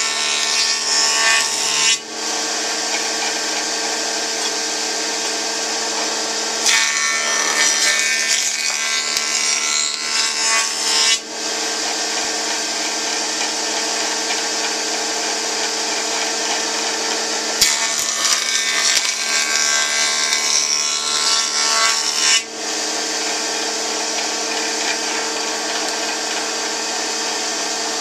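A stationary power woodworking machine runs steadily with a motor hum while a juniper (larch) board is pushed through the cutter three times, cutting a notch along its edge. Each pass is a louder cutting noise, the first short and the next two several seconds long.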